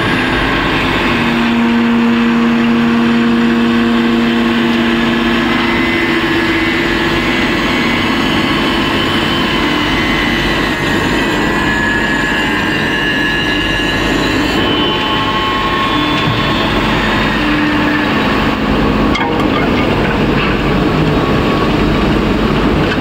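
Automatic wood lathe turning chair legs: the spinning spindle and travelling cutter head shaving the wood give a loud, steady machine noise, with motor whines that hold and shift in pitch. The sound changes about two-thirds of the way through as the machine moves on to a new square blank.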